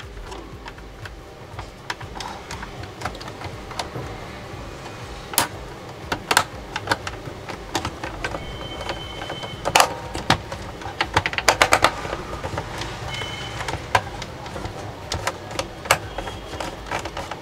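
Irregular small clicks, taps and plastic rattles from hands working the tuning dial pointer mechanism of an opened Philips 2-in-1 radio cassette recorder. The clicks come thickest about two-thirds of the way through, and there are a few short high squeaks.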